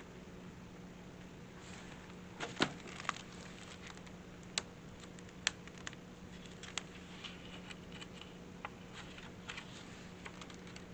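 Quiet room tone: a steady low electrical hum with scattered small clicks and taps, the loudest a few seconds in.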